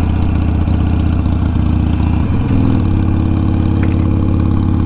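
Harley-Davidson motorcycle's V-twin engine running steadily, its pitch shifting slightly a little over two seconds in.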